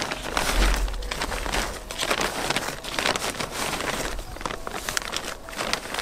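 Plastic bag of potting mix crinkling and rustling as it is tipped, with potting mix pouring out onto the soil in irregular bursts.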